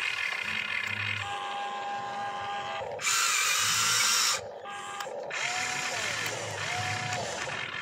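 Electric motors of a toy RC excavator whining as the boom and bucket move and the upper body swings, the pitch gliding up and down with each movement. About three seconds in, a louder rasping noise lasts a little over a second.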